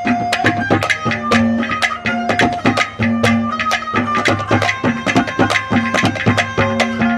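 Instrumental interlude of Haryanvi ragni folk music: rapid hand-drum strokes under held notes of a melody instrument, with no singing.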